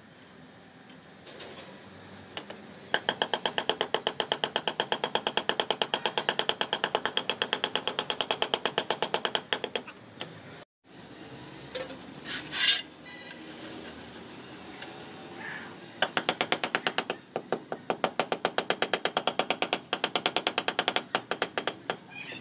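Ceramic floor tile tapped down into its mortar bed with a tool, in rapid, even taps of about six a second. There are two long runs of several seconds each, with a single sharp click between them.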